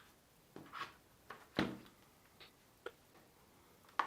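A few scattered clicks and light scrapes with one knock about a second and a half in, the sound of a keyboard being handled and moved on a desk.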